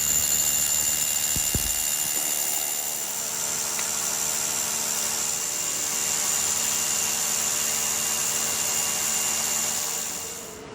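A power tool running steadily with a high whine, cut off sharply near the end.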